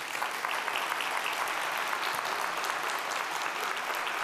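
Audience applauding steadily: a conference hall full of people clapping at the end of a talk.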